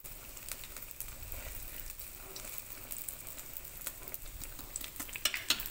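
Pieces of food shallow-frying in hot oil in an electric skillet: a steady sizzle with scattered crackles, and a few sharper pops near the end.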